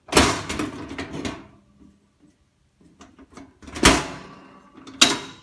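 Metal parts of a Rinnai gas stove being handled: a clattering scrape for about the first second and a half, then two sharp knocks about a second apart near the end.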